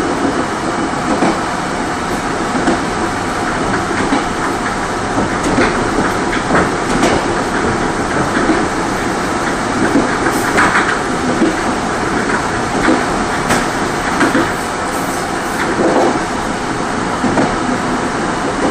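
Korail Mugunghwa passenger train running along the track, heard from inside the rearmost coach through its end window: a steady rumble of wheels on rail with irregular clicks over the rail joints.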